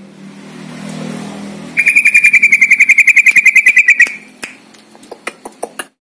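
A swelling whoosh, then a loud, fast, very even high trill of about a dozen chirps a second lasting a little over two seconds, followed by a few short sharp clicks.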